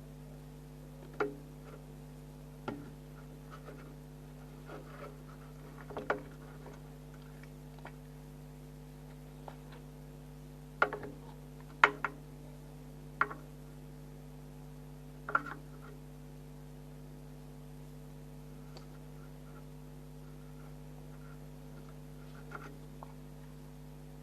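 Scattered light clicks and knocks, a few seconds apart and mostly in the first half, over a steady low hum.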